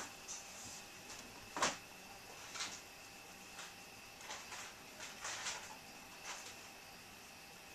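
Black marker scribbling on a white drawing board while colouring in: short rubbing strokes in irregular bursts, one louder about a second and a half in.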